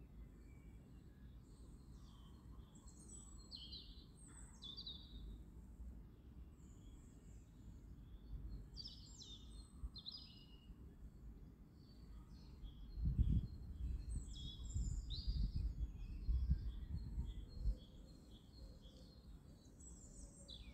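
Small birds chirping repeatedly with short, quick high calls, over a low rumble that grows louder for a few seconds past the middle.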